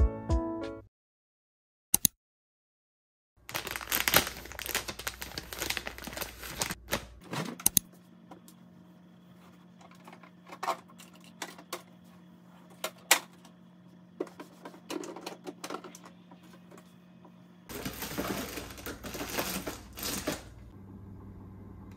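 Refrigerator being sorted and cleaned out by hand: bottles, containers and packages in the door pockets and freezer drawer being moved, with irregular clicks, knocks and rustling. A steady low hum runs under the middle part.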